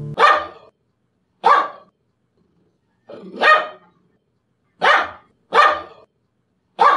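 English bulldog barking: six short barks with uneven gaps, two of them close together about five seconds in.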